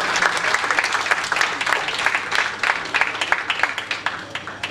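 Audience and panelists applauding, the clapping thinning out and fading toward the end.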